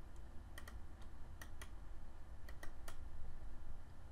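Computer mouse clicking about seven times, several clicks in quick pairs, over a low steady hum.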